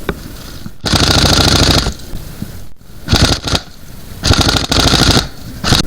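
Airsoft gun firing on full auto in rapid buzzing bursts. A long burst of about a second comes first, then a few short bursts, then another long burst and a short one near the end.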